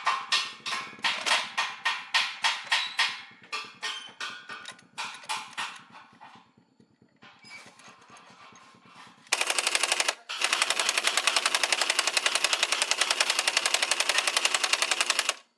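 Repeated sharp mechanical impacts, about three or four a second, dying away over the first few seconds. After a short lull comes a fast, continuous rattle of rapid impacts lasting about six seconds, broken once briefly.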